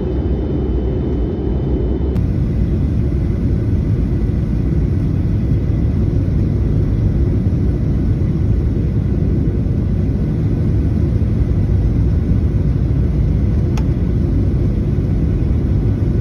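Steady low rumble of a jet airliner heard from inside the passenger cabin, engine and airflow noise running without a break and slowly growing a little louder. A faint click sounds about two seconds in and another near the end.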